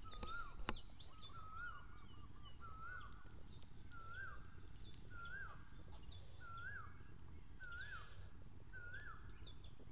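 A bird calls the same short note over and over at an even pace, about four times every three seconds, each note rising then falling. Two sharp clicks come in the first second.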